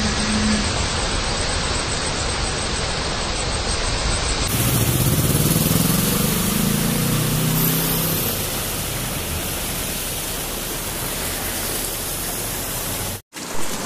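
Steady hiss of heavy rain on a flooded road. About five seconds in, a vehicle's engine rises in pitch and then holds steady as a van drives through the floodwater.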